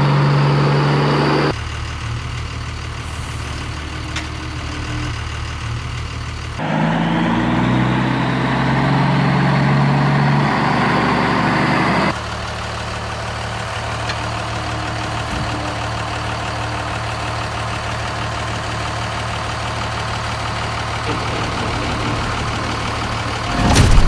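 Truck engine sound, idling and revving, that switches abruptly to a new section about 1.5, 6.5 and 12 seconds in. A short gliding tone comes at the very end.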